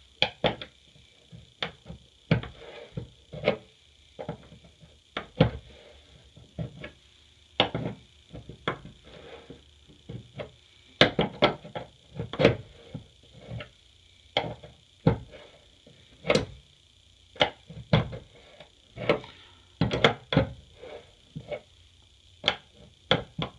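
Crescent wrench clicking and knocking against a bathroom faucet's valve-stem nut in irregular short strokes, as it is refitted on the nut and turned to tighten it down.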